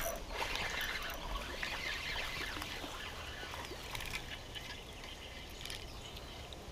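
Spinning reel being cranked while a small hooked fish splashes at the water's surface as it is reeled in. The sound is louder in the first couple of seconds and eases off after.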